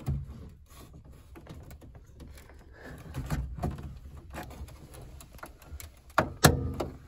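Plastic retaining clips and cables inside a Honda Odyssey's sliding door being worked loose by hand: a run of small clicks and rustling, with two sharp clicks about six seconds in.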